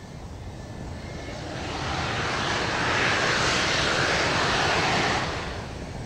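Twin J79 turbojets of an F-4EJ Kai Phantom II running as the jet taxis past: the jet noise swells about two seconds in, stays loud for about three seconds, then drops away near the end.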